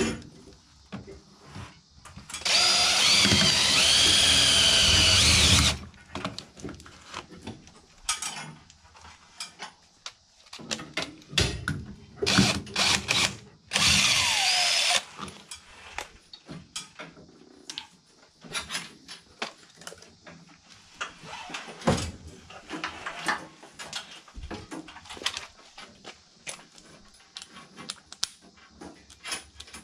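DeWalt cordless drill/driver running: one long run of about three seconds, then several short trigger bursts and a final run whose whine falls as it spins down, with clicks and handling noise between.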